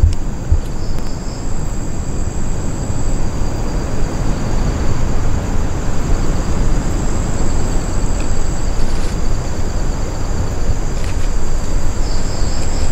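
Loud, steady rushing noise, heaviest in the low end, with insects chirring in two steady high tones over it.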